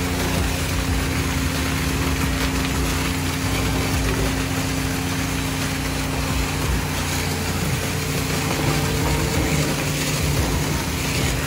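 Self-service car wash pressure pump running steadily, a constant hum under the hiss of water or foam spraying.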